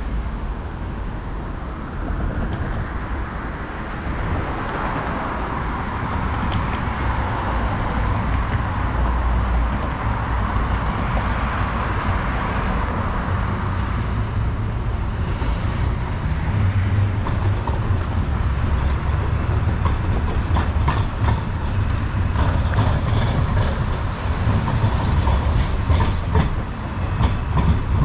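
A rail vehicle passing, with a steady rumble that swells and fades in the middle. From about two-thirds of the way in there is a quickening run of sharp clicks, like wheels over rail joints.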